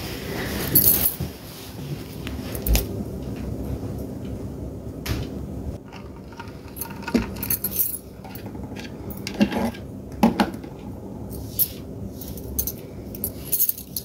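Light metallic jingling and clinking with rustling and knocks, irregular and close to the microphone, as things are handled and moved about.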